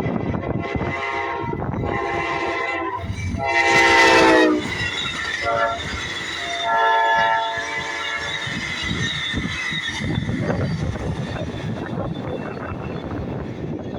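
Amtrak train passing close by, its locomotive horn sounding long, long, short, long, the standard grade-crossing signal, with the second blast the loudest. Wheels and cars rumble on the rails throughout.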